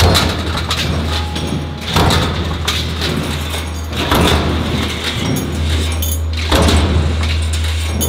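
Mechanical stamping press punching steel parts from sheet strip, with a sharp strike about every two seconds over the steady hum of the press's drive.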